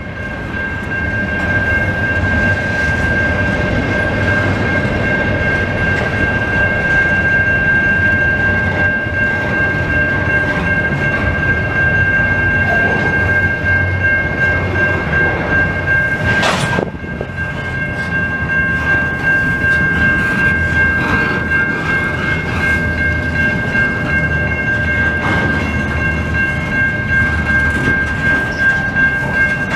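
Double-stack container cars of a long freight train rolling past a level crossing, with a steady rumble and the clickety-clack of wheels over the rail joints. Over it runs a steady high ringing from the crossing bell. A sharp knock comes about 17 seconds in.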